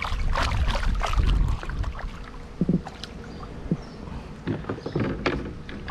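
A hooked black drum thrashing and splashing at the water's surface beside a kayak as it is grabbed by hand. The splashing is heaviest in the first two seconds, then gives way to scattered smaller splashes and knocks as the fish is lifted out.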